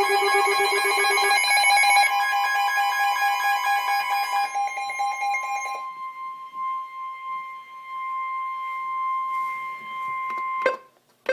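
Emergency Alert System alert tones: a chord of pulsing electronic tones fades out about halfway through. A single steady alarm tone near 1 kHz, the Weather Radio 1050 Hz warning tone, carries on alone and cuts off abruptly shortly before a sharp click at the end.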